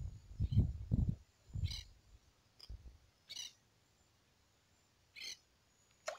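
Low rumbling on the microphone for about the first second, then three short high chirps spaced a little under two seconds apart, an animal calling.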